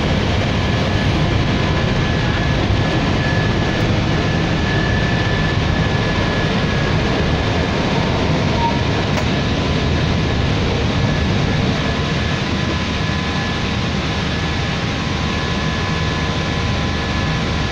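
Steady flight-deck noise of an Airbus A320 climbing after takeoff: a constant rush of airflow and engine noise, with a few thin steady whistling tones over it.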